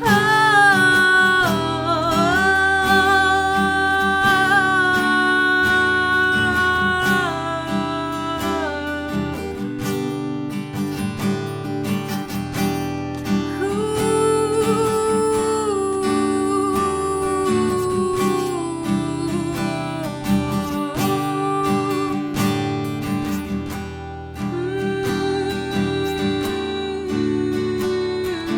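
Acoustic guitar strumming chords, with a long held sung note over the first several seconds and a wordless vocal line around the middle.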